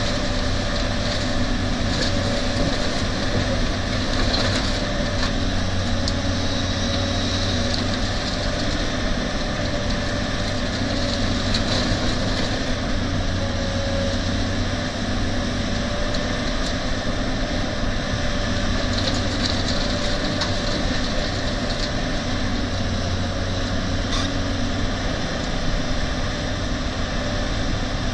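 Caterpillar 320D excavator's diesel engine running steadily while it loads laterite into a dump truck, with a few scattered knocks and crunches of the bucket and the soil going into the truck bed.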